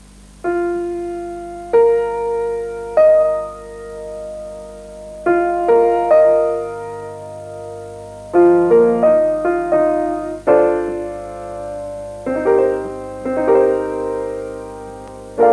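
Grand piano played slowly: single notes and chords struck at irregular intervals of half a second to two seconds, each left to ring and die away.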